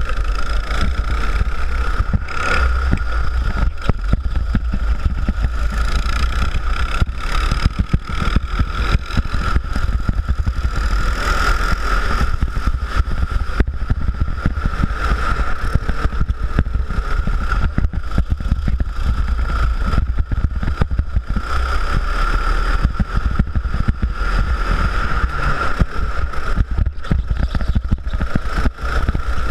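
Rental go-kart engine running steadily at speed, heard close up from on board the kart, with a constant low rumble beneath a steady engine drone.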